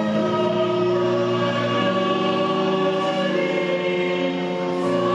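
Choral music: voices holding slow, sustained chords that move to new notes every second or two.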